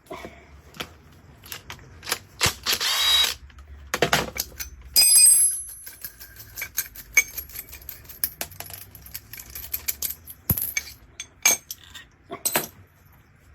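Metal tools and press hardware clinking and clanking as they are handled, with a short harsh buzz about two and a half seconds in and a loud ringing metal clank about five seconds in.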